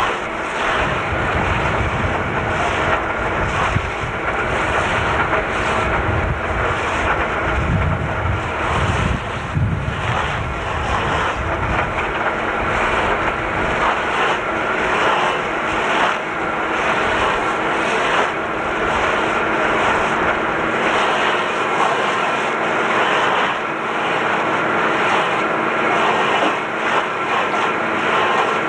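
Fiatagri 180-90 tractor's diesel engine running steadily under load, driving a rear-mounted Rotor stump grinder that chews a stump into wood chips. A deep rumble in the first half fades after about twelve seconds.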